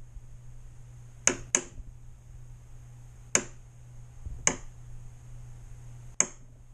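Five sharp taps, spaced irregularly, as the aluminium drive strut carrying a digital angle gauge is nudged into level alignment.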